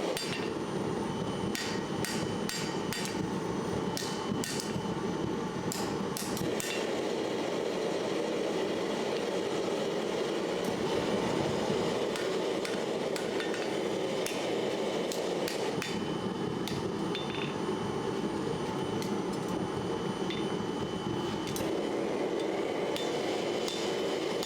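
A hammer tapping on metal: many light, irregular strikes that come thickly in the first several seconds and more sparsely after, over a steady background rush.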